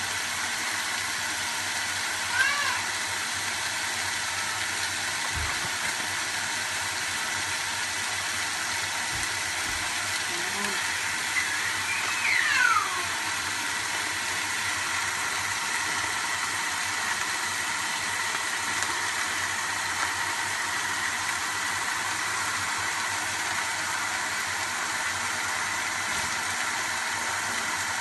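Chicken, potatoes, carrots and onion frying in a wok with a steady sizzle. Two brief falling chirps stand out, one about two seconds in and another about twelve seconds in.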